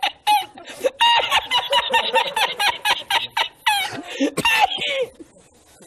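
A man's high-pitched, rapid staccato laughter, a long run of short bursts with a few longer cries, dying away about five seconds in.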